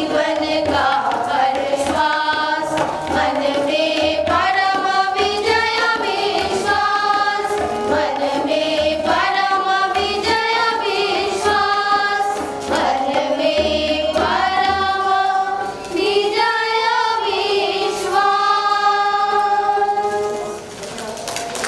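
A group of women singing a devotional song together in unison, the melody moving in sustained sung phrases.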